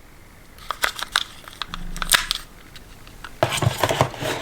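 Small sharp clicks as Creative Outlier Gold earbuds are set into their charging case, followed near the end by denser rustling and crinkling handling noise.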